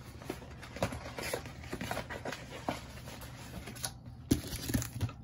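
Quiet, irregular taps, clicks and rustles of trading cards and a cardboard card box and its packs being handled and opened.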